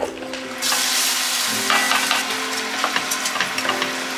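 Rice sizzling as it fries in a pot, stirred and scraped with a wooden spatula: a dense crackle that starts about half a second in.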